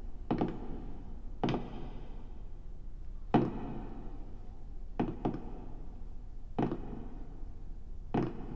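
Slow footsteps on a wooden floor: single thudding steps, about one every second or two, with a short room echo.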